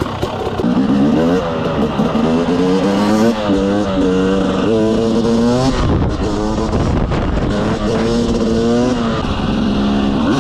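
Motorcycle engine revving hard under acceleration. Its pitch climbs and falls back several times.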